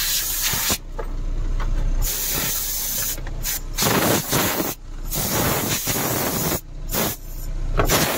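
Compressed air from a truck's air-brake system hissing out of a soft blow-off hose in a series of strong blasts, each a second or two long, with short breaks between them.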